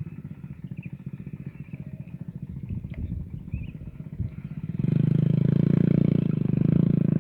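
A small engine running with a fast, even pulse, growing clearly louder about two-thirds of the way through.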